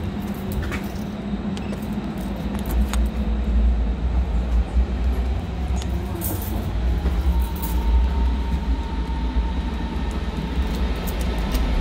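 Low, steady rumble of a train at the station platform. There are a few clicks about a second in, and a bunch of keys jingles near the end as a key goes into the elevator's keyswitch.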